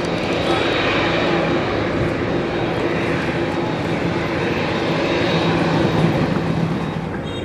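Boeing 787 Dreamliner's Rolls-Royce Trent 1000 turbofans running at low power as the airliner taxis close by: a steady jet rush with a low hum, rising slightly near the end.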